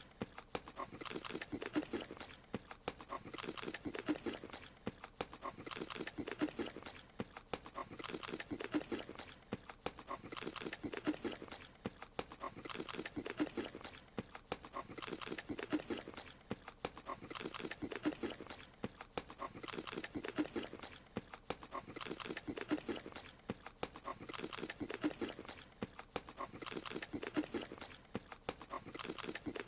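Cartoon creature munching a strawberry: small animal chewing and crunching noises in a short eating sound that loops, repeating about every two and a half seconds.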